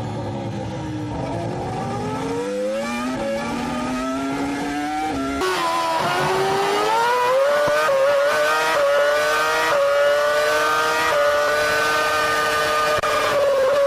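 Formula 1 car engine heard onboard at high revs, its pitch climbing as it accelerates. About five seconds in the sound changes abruptly, then the pitch rises again and holds high with small dips before falling near the end.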